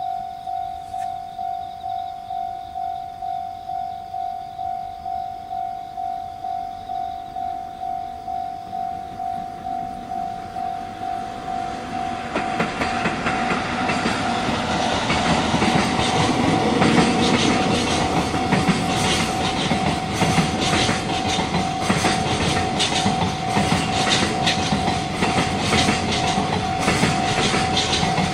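Japanese level-crossing warning bell dinging steadily, about two electronic dings a second. About twelve seconds in, a train comes through the crossing, its wheels clacking over the rail joints and growing louder as it passes.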